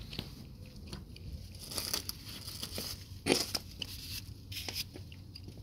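Small clicks and rustling handling noises as the plastic oil filler cap of a 2010 Toyota RAV4 engine is fitted and screwed down after the oil top-up, with one louder scrape a little over three seconds in.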